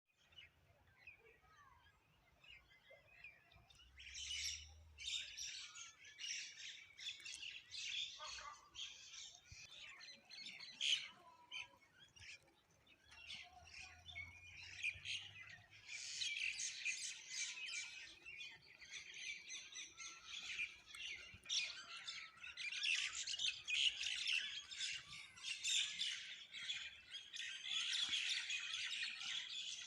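Many small birds chirping and twittering together in a dense, busy chorus, sparse for the first few seconds and then near-continuous, fuller from about halfway through.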